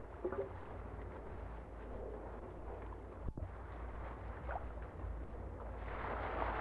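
Steady low rumble with a hiss of wind and water aboard a sailing yacht at sea, and faint voices now and then. The sound drops out for a moment a little past halfway.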